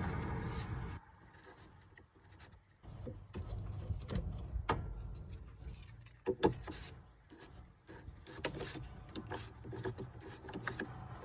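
Scattered clicks, scrapes and rubbing of a socket wrench and metal parts as the fuel filter cap on top of the engine is worked off, with one sharper knock about six seconds in.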